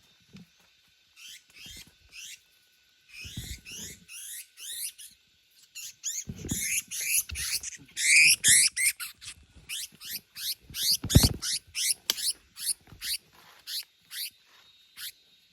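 Small bird caught on glue giving rapid, shrill, rising distress squeaks, several a second, loudest in the middle. A few low thuds come through among them.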